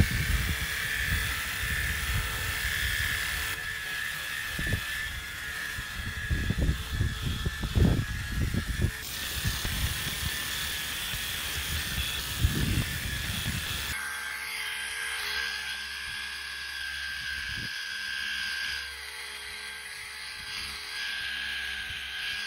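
WORX WG625 cordless power cleaner running with a steady high motor whine and the hiss of its water jet spraying onto the boat. Low rumbling and knocks sound under it for about the first half.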